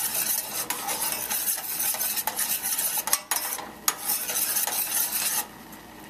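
A spoon stirring and scraping against a small stainless steel saucepan of bubbling honey, lemon juice and margarine sauce, with clinks on the pan. The stirring stops about five seconds in, leaving a soft steady bubbling hiss from the simmering sauce.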